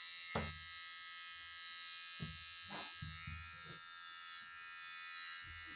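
Cordless T-blade hair trimmer running with a steady high buzz as it shaves a child's head close, with a few soft handling knocks, the sharpest about half a second in.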